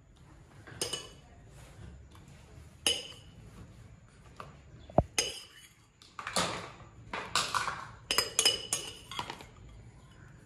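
A spoon clinking and scraping against a glass bowl as crumbled fruit cake is spooned into plastic cups. There are a few separate clinks at first, then from about six seconds in a busier run of clinks and scrapes.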